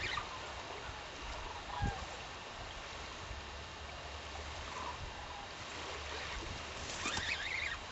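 Wind buffeting the microphone over a steady wash of lake water, with a single low knock about two seconds in and a brief wavering chirp near the end.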